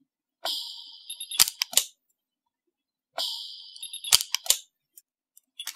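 Orion PA230 pulse-arc micro-TIG welder firing twice, about three seconds apart, as it adds filler wire to a hole in a mold die insert. Each firing is a sudden hiss that fades over about a second, followed by a few sharp cracks.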